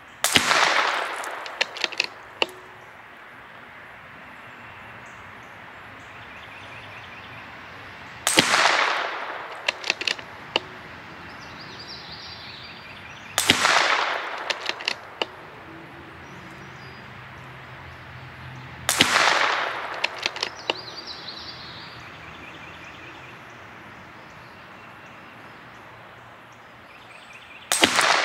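Five shots from a CZ 457 MTR bolt-action .22 LR rifle firing Eley Match ammunition, spaced several seconds apart, each with a short echoing tail. Each shot is followed within a couple of seconds by a few sharp clicks of the bolt being cycled. These are sighting-in shots.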